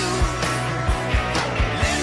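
Rock music with a steady drum beat and bass.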